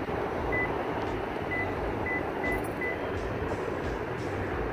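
About six short, faint, high electronic beeps, all on one pitch and irregularly spaced, over a steady low background rumble.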